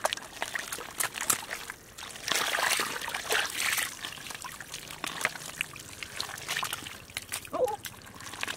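Wet mud squelching and sloshing with muddy water as hands dig through it, with many small wet clicks and a louder stretch of sloshing a few seconds in.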